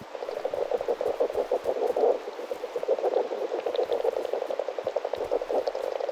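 Young Menzbier's marmots rattling their teeth: a rapid, continuous clicking chatter. It is a dominance threat meaning "I'm the boss, get out of my territory," here used in play-fighting for rank.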